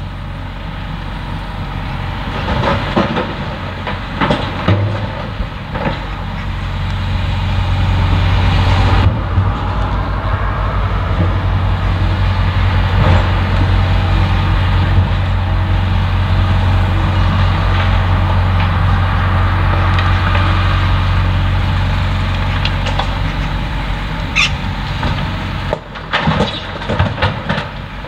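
Hitachi Zaxis 170W wheeled excavator's diesel engine running and building up under hydraulic load as it swings and works its boom, then easing off near the end. Rattling clatter of soil and rocks dropping into a tipper truck's steel bed comes early and again near the end.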